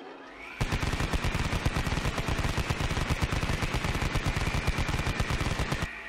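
Sound effect of automatic gunfire: a short rising whine, then a long burst of rapid, evenly spaced machine-gun shots lasting about five seconds over a steady whine, cutting off just before the end.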